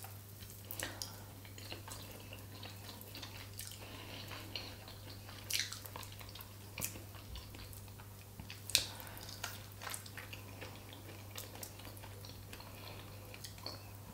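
Small wet clicks and smacks of fingers picking apart a piece of fish, mixed with quiet chewing, two sharper clicks about five and a half and nine seconds in.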